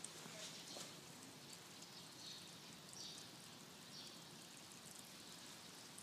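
Near silence: faint outdoor background hiss, with a few faint, short high chirps about a second apart in the middle. No engine is running.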